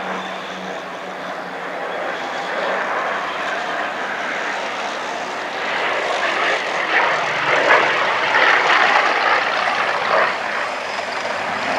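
A Hawker Hurricane IIc's Rolls-Royce Merlin V12 engine and propeller heard from the ground as the fighter flies past. The engine noise builds to its loudest between about seven and nine seconds in, then eases slightly.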